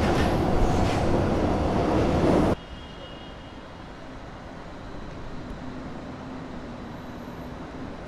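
Metro train running, a loud rumbling and rattling noise that cuts off abruptly about two and a half seconds in. Quieter steady city-street background follows, with a faint hum.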